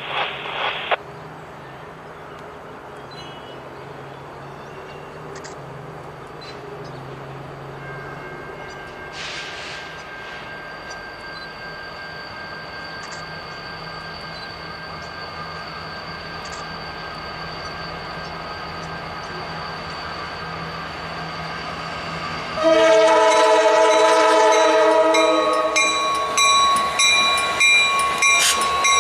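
Norfolk Southern's two EMD GP60 diesel locomotives approach with a low, steady rumble that slowly grows louder. About 23 seconds in, the lead unit's multi-tone air horn sounds loudly and suddenly as the train draws close. It is followed by high ringing tones and regular clicking as the locomotives pass.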